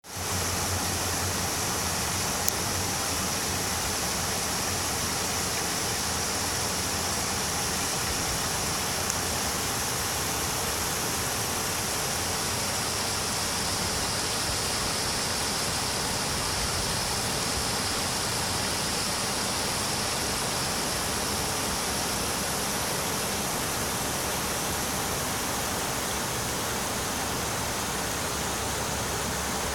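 Shallow, clear creek flowing over a rocky bed and small riffles: a steady rush of running water.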